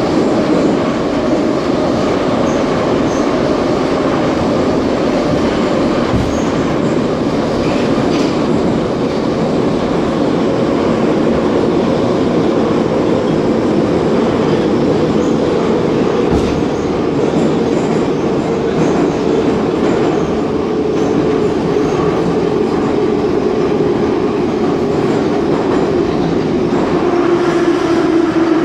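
Ezh3 metro train running through the tunnel: a steady rumble of wheels on rail with a whine that falls slowly in pitch, dropping more steeply near the end as the train slows.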